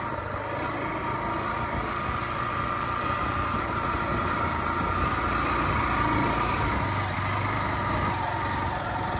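Motor vehicle engine running steadily while driving, with a steady whine over a low rumble.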